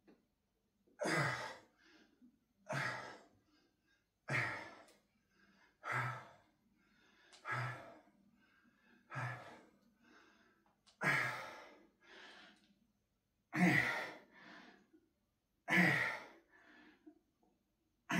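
A man breathing hard through a set of press-ups, with a loud, voiced exhale on each push about ten times and a quieter inhale between. The pushes come about every one and a half seconds at first and slow to about every two and a half seconds near the end as he tires.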